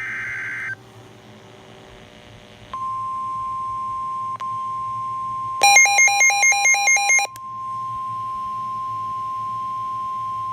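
A short screeching burst of weather-radio SAME data tones, then about three seconds in the steady 1050 Hz NOAA Weather Radio warning alarm tone starts and holds. Partway through, a weather radio receiver's own alert beeps rapidly and loudly over it for under two seconds, signalling an incoming warning.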